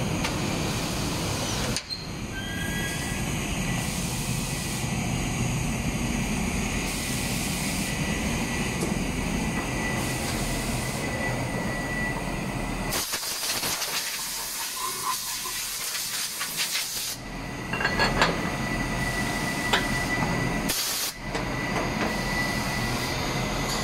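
Gema powder coating plant running: a steady rushing hiss of moving air with a thin high whine. About thirteen seconds in, the low rumble drops away for a few seconds and a crackling hiss takes over. A few sharp clicks and knocks follow near the end.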